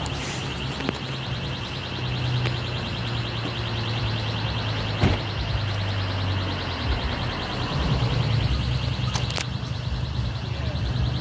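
High-pitched electronic burglar alarm sounding steadily with a fast pulse, set off by the smashed store door, over a low hum. A sharp click comes about five seconds in.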